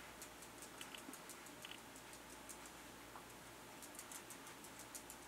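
Faint, irregular soft ticks of a Real Techniques makeup sponge being dabbed against the skin, pressing in translucent setting powder.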